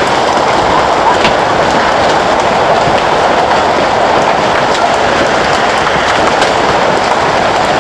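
Hailstorm: a steady, dense roar of hail and rain pelting down, with sharper clicks of single hailstones striking now and then.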